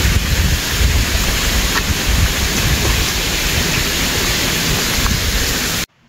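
Wind buffeting the microphone: a loud, uneven low rumble under a steady hiss, cutting off abruptly near the end.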